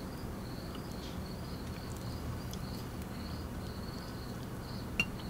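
Crickets chirping steadily in a pulsing rhythm, with a faint low hum beneath. A single sharp click about five seconds in.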